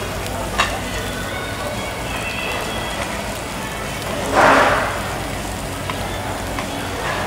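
Meat and shrimp sizzling steadily on a hot tabletop barbecue grill plate, with a short, louder rush of sizzle about four and a half seconds in.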